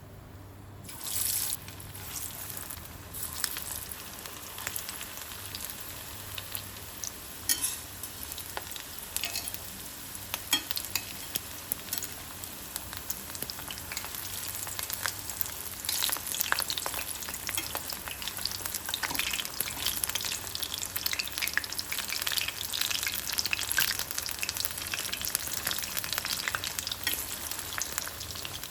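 Food frying in hot oil in a pan: a steady sizzle full of crackles and pops, with a sudden loud burst of sizzling about a second in and the crackling growing busier about halfway through.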